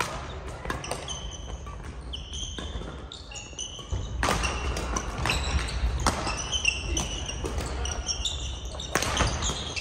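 Badminton play in a gym hall: several sharp racket strikes on the shuttlecock, among many short high squeaks of court shoes on the wooden floor.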